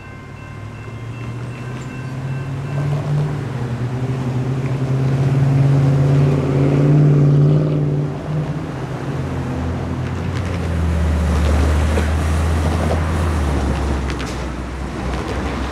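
Road traffic driving across a railroad crossing: cars and a pickup pull across, then a heavy truck's engine rumbles by, low-pitched, in the last third. An electronic crossing bell's ringing tone stops about two seconds in.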